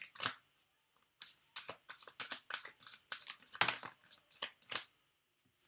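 A deck of tarot cards being shuffled by hand: a quick, irregular run of sharp card slaps and swishes, with a brief pause about half a second in.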